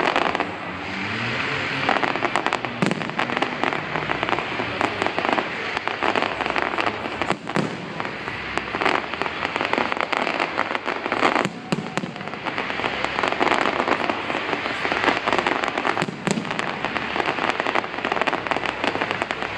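Fireworks display: a dense, continuous crackling with louder bangs every few seconds.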